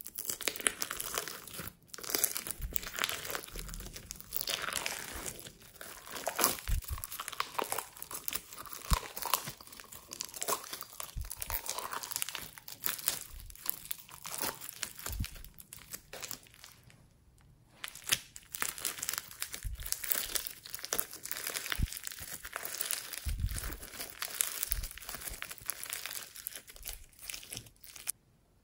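Floam, small foam beads bound in clear slime, crackling and popping as it is squeezed and pulled out of a cup by hand; a dense run of fine crackles, pausing briefly about two-thirds of the way through.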